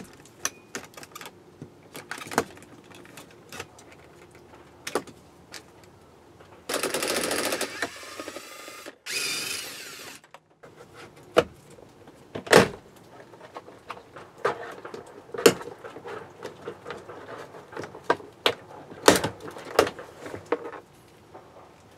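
Clicks and knocks of plastic door trim being worked loose with hand tools on a GMC Envoy door panel. About a third of the way in, a cordless drill/driver runs for about two seconds, then runs again briefly with its pitch falling as it winds down.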